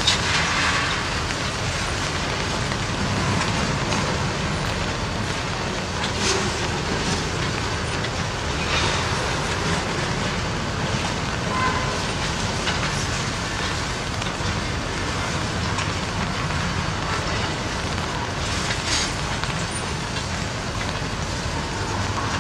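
Freight train rolling past, its tank cars' wheels running on the rails in a steady rumble with a few short, sharper noises.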